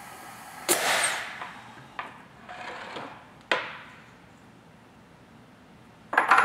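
Tippmann Clicker 700 die-cutting press humming steadily, then a sudden loud noisy release under a second in. Clicks and a short scrape follow as the metal platen tray is slid out, with a cluster of clattering knocks near the end.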